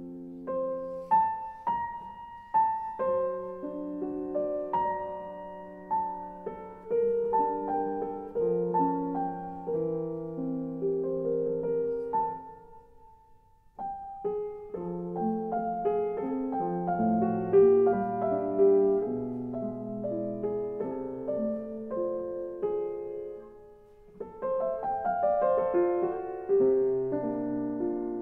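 Background piano music, a slow tune of held notes; it dies away almost to nothing about halfway through and dips again near the end before going on.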